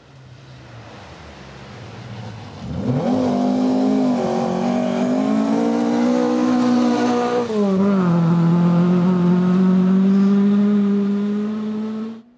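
Rally car engine at high revs, coming closer and accelerating hard, getting louder over the first three seconds. About halfway through the pitch drops at a gear change and then climbs again. The sound cuts off abruptly near the end.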